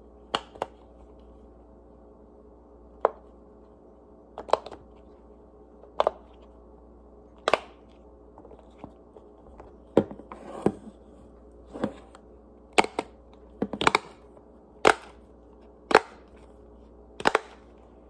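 Silicone bubbles of a flower-shaped simple dimple fidget toy being pressed in and out, each making a sharp click. There are about eighteen clicks at irregular intervals, some in quick pairs, coming faster in the second half, over a faint steady hum.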